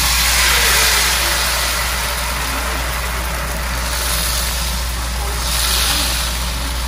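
Banh xeo batter sizzling loudly as it is ladled into hot oil in a non-stick wok. The sizzle is strongest just after the pour and swells again about five and a half seconds in, over a steady low hum.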